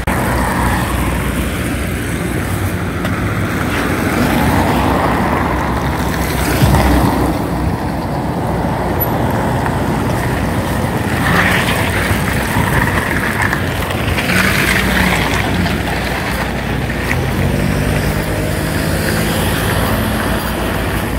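Road traffic noise: a steady rumble of motor vehicles, swelling several times as cars pass.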